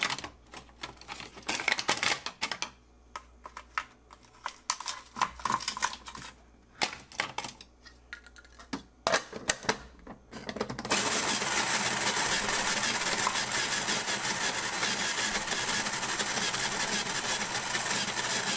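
Ice cubes clicking and knocking as they are dropped into the plastic ice canister of a Nostalgia Retro snow cone maker and its lid is locked on. About eleven seconds in, the machine's motor starts and shaves the ice with a steady, dense grinding noise.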